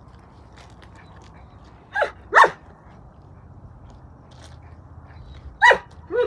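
A dog barking: two pairs of short barks, each falling in pitch, about two seconds in and again near the end.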